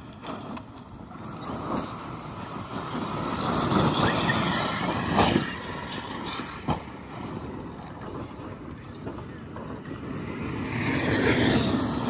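Large brushless electric RC trucks driving hard over loose gravel: motor whine rising and falling with the throttle, with tyres spraying and crunching gravel. It is loudest about four seconds in and again near the end.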